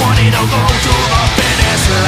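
Loud hard rock music.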